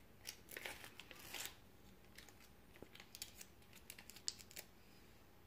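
Faint crinkling and tearing of a baby-food container's plastic seal being pried open, busiest in the first second and a half, then a few scattered small clicks.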